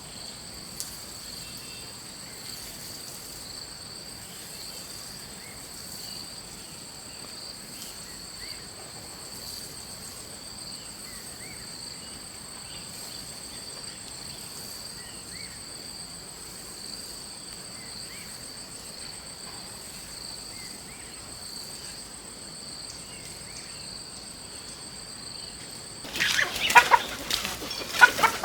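Steady insect chorus, two high unbroken tones with a few faint chirps over it. About 26 seconds in, chickens suddenly start clucking loudly in quick, irregular calls.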